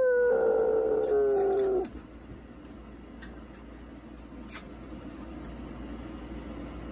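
Young Siberian Husky howling: one long note that slides slowly down in pitch and stops about two seconds in. A few faint clicks follow.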